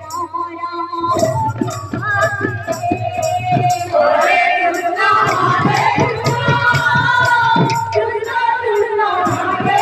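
Women singing a Sambalpuri kirtan farewell song (bidaya geet) through a PA, over a steady percussion beat. The music drops out briefly at the very start and comes back in full about a second in.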